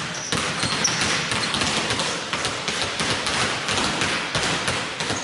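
Several basketballs being dribbled on a hardwood court, irregular overlapping bounces ringing in a large hall.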